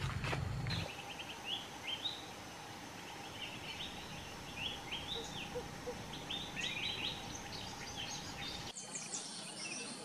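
Small birds chirping: many short, quick rising chirps repeated over a faint steady background hum. Near the end the background changes abruptly to a different, thinner bird ambience with higher chirps.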